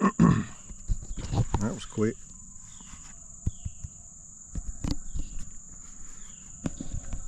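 Beagles barking in bunches, the loudest cluster in the first two seconds and shorter ones about halfway through and near the end, over a steady high drone of insects.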